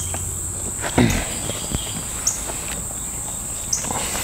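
Insects chirring in a steady, high continuous drone, with a thump about a second in and a few lighter clicks and knocks from handling the plastic generator caps and parts.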